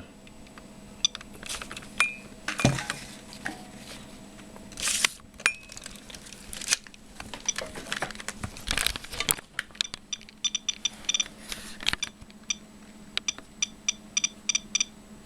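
Soeks radiation meter chirping in short, irregular electronic clicks, each one a detected count from the exposed americium-241 chamber of an ionisation smoke detector. The chirps start about ten seconds in and come more often toward the end. Before them there is rustling and handling of the opened smoke detector.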